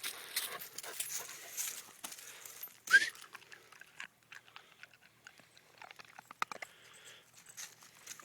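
German shepherd puppies at play: scuffling, chewing and small clicks and knocks, with a short, loud, rising high-pitched call about three seconds in.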